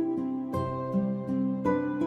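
Gentle instrumental background music of plucked-string notes, each struck sharply and left to fade.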